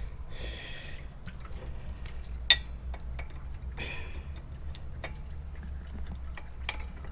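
Scattered light ticks and taps of work under a car, with one sharp click about two and a half seconds in and a couple of breaths.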